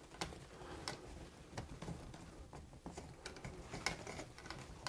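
Faint, scattered clicks and scrapes as a dimmer switch is pushed into a wall electrical box and its mounting screws are driven in with a screwdriver.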